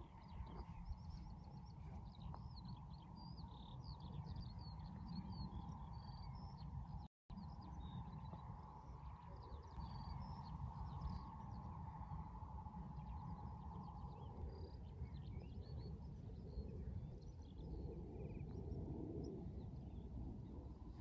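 Small birds chirping and singing in many short, high notes, thickest in the first half, over a steady low rumble. The sound drops out completely for a moment about seven seconds in.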